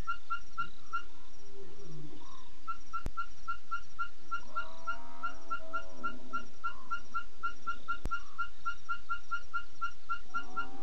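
Night sounds of the African bush: a steady chirping call, about four pulses a second at one pitch, runs throughout. Over it come wavering, whining animal calls, one in the middle and another starting near the end, which the uploader takes for a buffalo being killed by lions. Two sharp clicks are also heard.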